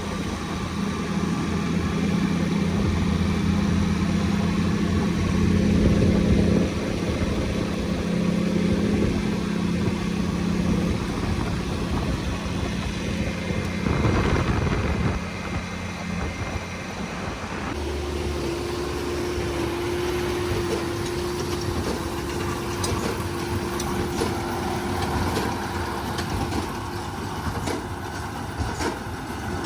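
Farm tractor engine running steadily. About two-thirds through, the sound changes abruptly to a different steady engine note.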